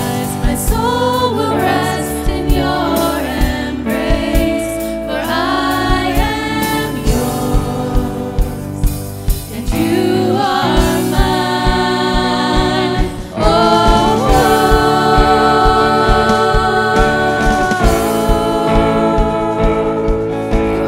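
Live contemporary worship music: a church band with a steady drum beat and voices singing long, held notes. There is a brief dip a little past the middle, then the music comes back louder.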